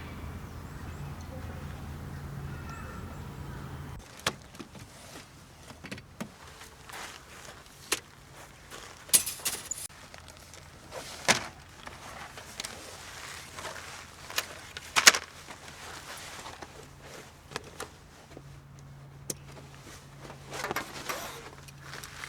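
Scattered knocks, clicks and rustling of gear being handled in and around a small camper van, several of them sharp. A low steady hum stops about four seconds in and comes back near the end.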